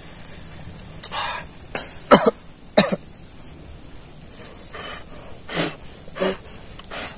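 A man coughing repeatedly, a string of short coughs with the loudest two or three about two seconds in.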